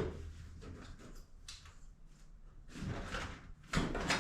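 Short knocks and scrapes of objects being handled and moved, in two clusters about three and four seconds in, over a faint steady low hum.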